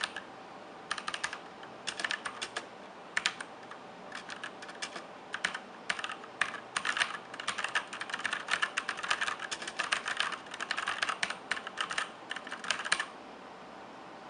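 Typing on a Sunsonny SK-K1 66-key mechanical keyboard with red linear switches. The keystrokes are scattered at first, become rapid and continuous from about halfway, and stop shortly before the end.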